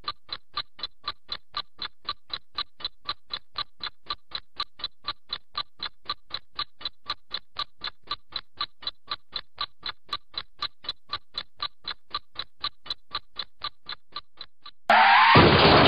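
Clock-like ticking sound effect, about four even ticks a second. About a second before the end it gives way to a sudden loud whooshing hit with a falling pitch sweep as music comes in.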